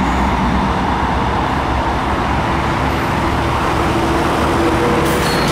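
Steady freeway traffic noise, an unbroken rush of passing vehicles.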